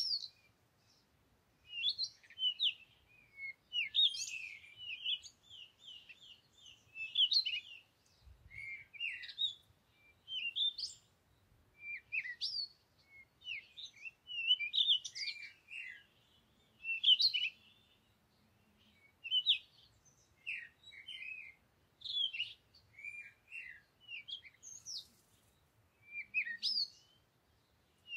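Small birds chirping in quick clusters of short, sweeping up-and-down notes, repeating every second or so.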